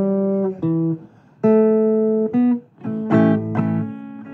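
Acoustic guitar playing: plucked single notes and chords that ring on, with a short break about a second in and another a little before the middle of the second half.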